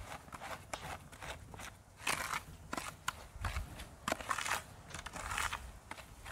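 A metal spoon mashing and stirring a thick, crumbly cake mixture in a plastic bowl: irregular scraping and squishing strokes, some with a light clink of metal on the bowl.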